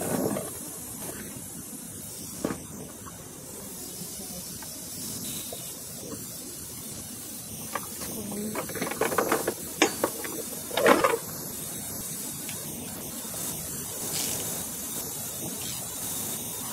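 Residual refrigerant hissing steadily out of the just-loosened high-side line fitting on a 2007 Kia Sedona's AC compressor: the last few PSI left in the evacuated system. A few short knocks and clatters of tools, loudest about nine to eleven seconds in.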